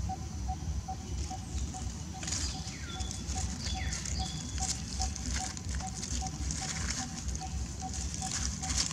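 Dry leaf litter crackling and rustling as macaques shift and walk on it, over a steady low rumble and a steady high-pitched hum, with faint regular pips about three times a second.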